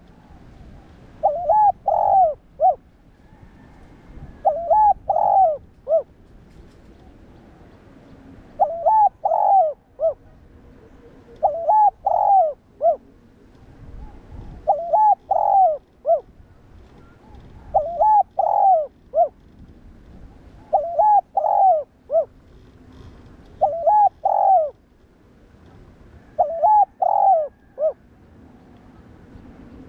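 Spotted dove cooing: a short phrase of three or four notes repeated about every three seconds.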